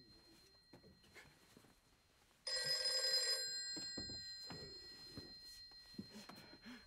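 A bell rings in one burst of about a second, starting and stopping abruptly, over a faint steady high-pitched tone; soft bumps and movement sounds follow.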